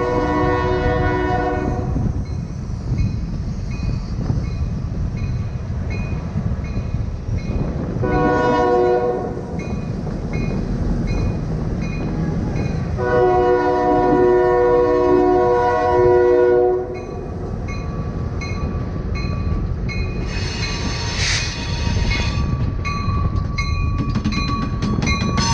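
Norfolk Southern EMD GP38-2 diesel locomotive's multi-chime air horn sounding over a steady low rumble of the moving train. One blast ends about two seconds in, a short one comes near eight seconds, and a longer one of about four seconds follows from around thirteen seconds.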